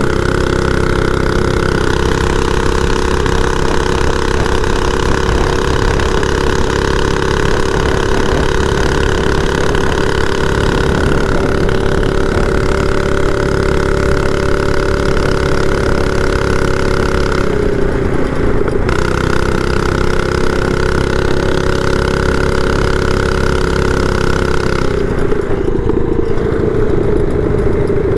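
Small single-cylinder engine of a home-built mini bike with a torque converter and aftermarket exhaust, running loud and steady under way. The engine note dips briefly about two-thirds of the way through and eases down in pitch near the end.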